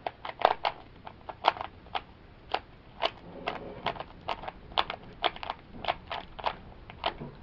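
Plastic Rubik's 3x3 cube being turned by hand: a quick, uneven run of sharp plastic clicks and clacks, about three a second, as the layers are twisted.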